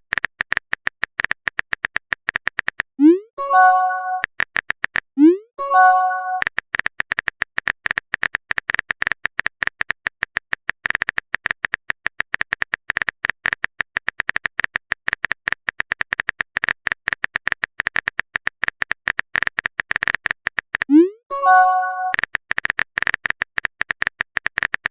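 Rapid, steady run of phone-keyboard typing clicks from a texting sound effect. Three chat-message alert sounds break into it, about three and five seconds in and again near the end: each is a short rising swoop followed by a bright chime.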